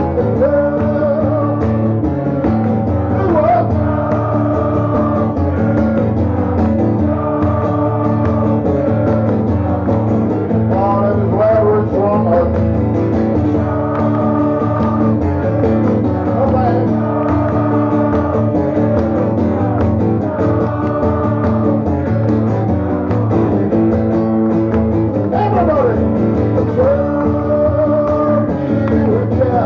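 Rock song played live on guitar, with singing: a steady, full band-style sound with held notes that slide in pitch.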